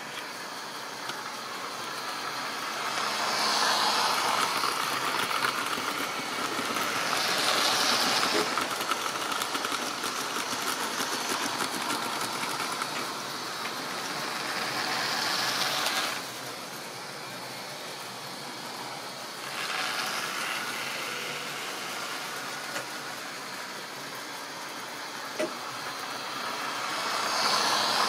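Model railway trains running on sectional track: the locomotives' small electric motors whirring and the wheels rattling over the rail joints. The sound swells several times as a train comes close and fades as it moves away, and drops off sharply about sixteen seconds in.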